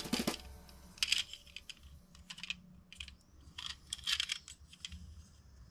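Light clicking and rattling of a small diecast toy car being handled and turned over in the hands, its wheels and small parts knocking. The clicks come in short clusters, busiest around four seconds in.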